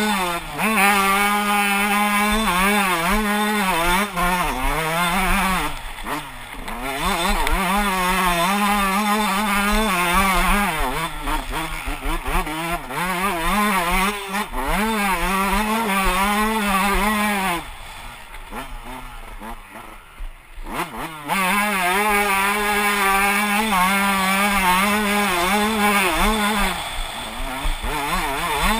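Motocross dirt bike engine being ridden hard, its pitch rising and falling again and again as the throttle opens and closes. Past the middle it drops to a quieter off-throttle stretch for a few seconds, then revs back up.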